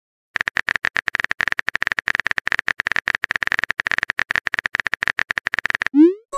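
Rapid keyboard typing clicks from a texting-story app's on-screen keyboard as a message is typed. Near the end comes a short rising whoosh as the message is sent.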